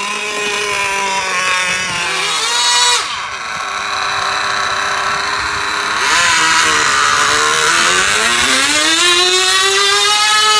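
Electric motor and gearing of a micro mini pulling tractor whining under load as it drags a weight-transfer sled down the table track. The pitch sags as the load builds, then climbs again near the end.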